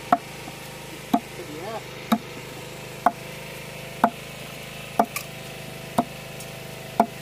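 Machete chopping a sugarcane stalk on a wooden plank: sharp chops about once a second, eight in all, over a steady low hum.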